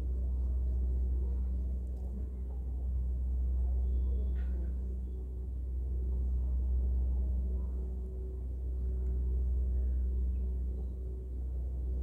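A steady low rumble with a faint hum over it, swelling and easing slowly every few seconds, and one faint brief higher sound about four seconds in.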